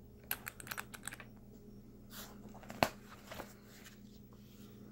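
Light metal-and-plastic clicking of a zipper pull on a nylon pistol case being handled: a quick run of small clicks in the first second, then a single sharper click near the middle and a few softer ones after it.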